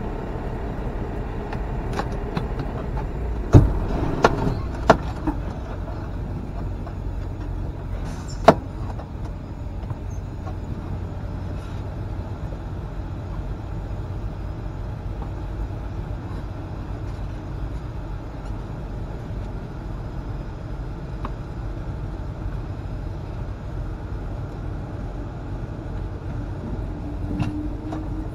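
Semi truck's engine running with a steady low rumble, with a few sharp knocks about three to five seconds in and one more around eight seconds in.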